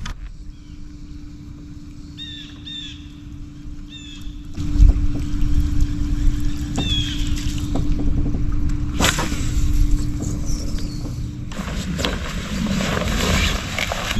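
Steady low hum of an electric trolling motor on a fishing boat, with a few short falling bird chirps. About four and a half seconds in, wind and water noise rise, and there is a sharp knock near nine seconds in.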